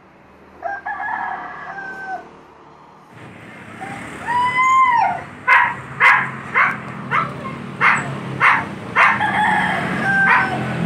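A rooster crowing: a short call about a second in, a longer crow that rises and falls about four seconds in, and another near the end. From about five and a half seconds a run of sharp knocks, roughly two a second, is the loudest sound.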